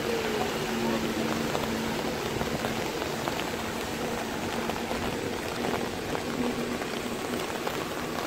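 Heavy rain falling on a flooded street: a steady hiss with many small drop ticks on the standing water, and a faint low hum underneath whose pitch falls during the first second or so.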